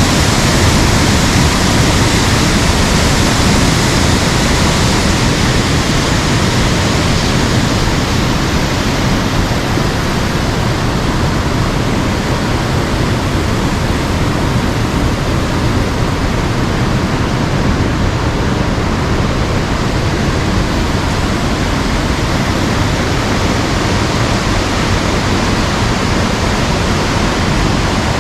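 Waterfall: a loud, steady rush of falling water with a deep rumble underneath.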